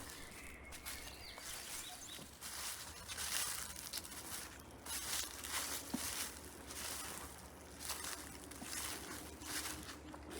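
Footsteps crunching through dry fallen leaves on a forest path at a steady walking pace, about one step a second.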